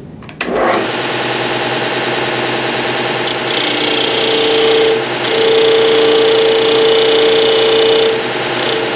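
A disc sander is switched on and spins up, then runs steadily. From about a third of the way in, a cherry workpiece is pressed against the disc to sand off a 45-degree chamfer. This adds a louder, steady grinding tone, broken by two short lifts of the piece.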